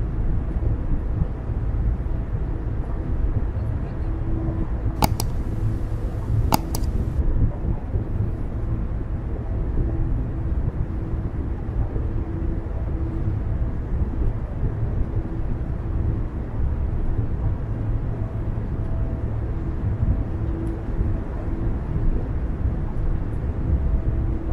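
Steady low road and tyre rumble of a car driving at a constant speed, with two brief clicks about five and six and a half seconds in.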